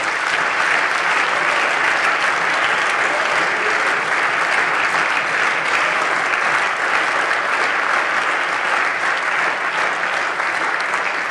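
Steady, sustained applause from the parliamentarians in a plenary chamber, many hands clapping at once, easing off near the end.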